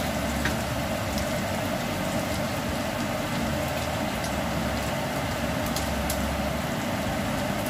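Chopped bacon and onion sizzling steadily in a frying pan as the bacon fat renders out, with a few faint clicks near the start.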